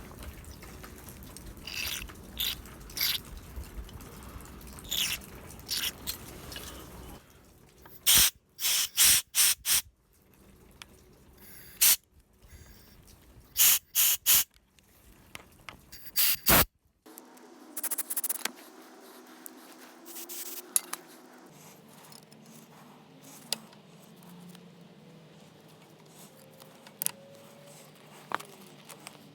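A cluster of short, loud spray bursts from a nozzle, blown into the small fuel passages of a Subaru SG550 generator's carburetor to clean them. The bursts come in a quick run in the middle, after a stretch of light handling noises, and are followed by a faint steady hum.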